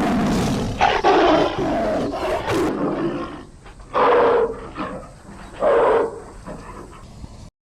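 Tiger roar sound effect: one long roar, then two shorter roars about four and six seconds in, cutting off suddenly near the end.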